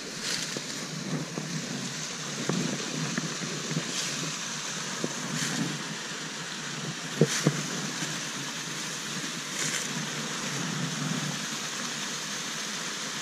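Small stream waterfall rushing steadily, an even noise of falling water. A few light knocks sound over it, the loudest a pair about seven seconds in.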